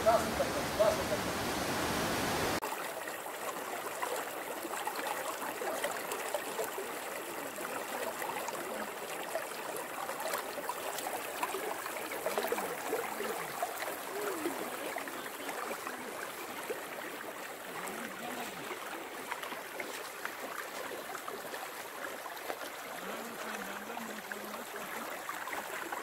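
A small mountain stream running over stones, a steady rushing of water. A louder rush of water cuts off abruptly about two and a half seconds in, and faint voices come through now and then.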